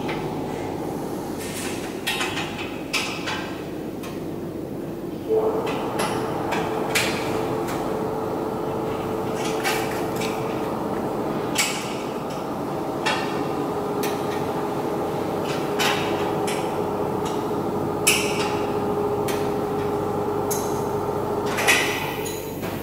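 Workshop noise: about a dozen sharp knocks at irregular intervals, typical of hammering during assembly work, over a steady machinery hum. About five seconds in, the hum gets louder and a steady whine joins it.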